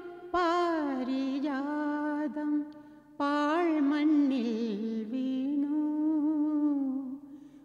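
A woman singing a wordless, humming melody in two long phrases, held notes joined by slow gliding ornaments, leading into a Malayalam film song.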